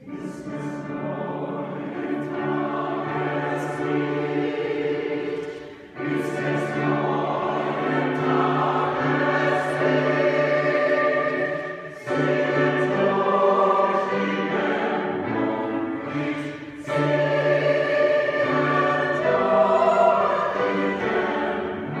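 Mixed choir singing a slow German part-song in sustained chords, phrase by phrase, with short breaks between phrases about 6, 12 and 17 seconds in.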